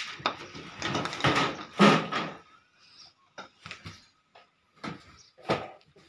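Bundles of bedding being pushed into a galvanized sheet-metal trunk: rustling and scraping for the first couple of seconds, then several separate knocks and clanks against the metal box and its lid.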